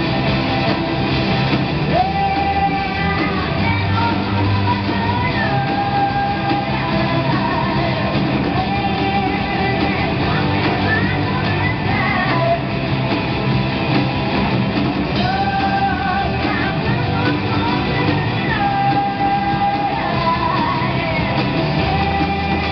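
Live rock band playing: a woman singing the lead line, with held notes and slides, over electric guitars, bass guitar and drums.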